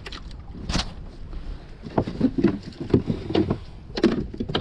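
Irregular knocks and clatter of gear being handled on a wooden boat deck, with one sharp click under a second in and a denser run of knocks over the last half.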